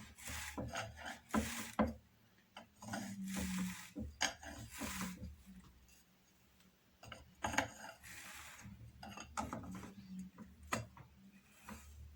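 A doffer being worked through the wire teeth of a drum carder's carding cloth to lift off the batt of carded Jacob fleece. It makes several scratchy rasping strokes with light clicks between them.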